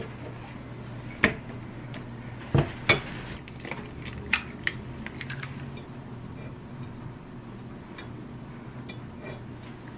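White ceramic dishes clattering as they are set down on a stone countertop, the loudest about three seconds in, followed by lighter taps of an egg being cracked on a dish rim. A steady low hum runs underneath.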